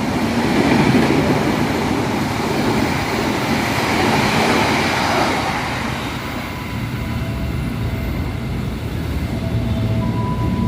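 A train running past on the rails with a steady rushing noise. About six seconds in the higher hiss eases off while a low rumble continues.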